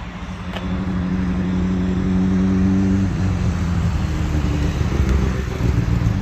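Car engine running, a steady low drone that shifts in pitch about three seconds in.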